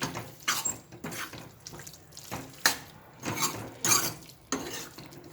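Wet sloshing and scraping as a spoon stirs a thick, watery masala paste in a cooking pan, in irregular strokes with a few sharp clicks of the spoon.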